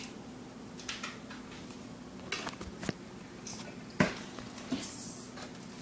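Quiet kitchen handling noises: a few light knocks and clatters, with one sharper knock about four seconds in, over a low steady hum.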